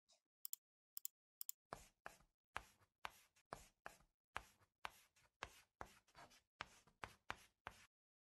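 Faint chalk scratching on a blackboard: a few short ticks, then a quick run of short drawing strokes, about two a second, stopping just before the end.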